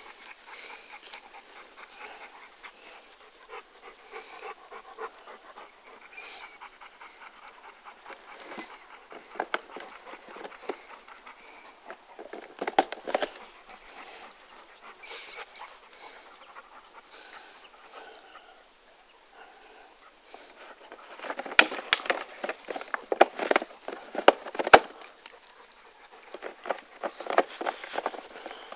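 A dog panting rapidly, heard up close, with a louder stretch of clicks and rustling about three quarters of the way through.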